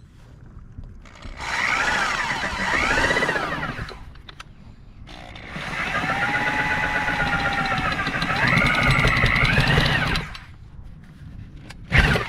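Reciprocating saw (SawZall) running in two long bursts, its motor pitch dipping and rising as the blade bites into the wood during a plunge cut. A sharp knock near the end.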